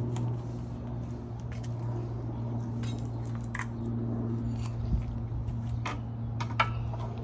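Scattered light metal clinks and taps of hand tools on the edger's blade-adjustment parts as the pin is worked on, a few sharper ones standing out, over a steady low hum.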